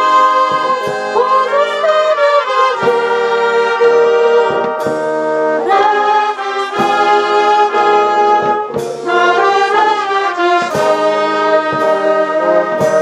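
Slow instrumental music of held chords, each lasting a second or two, with no singing.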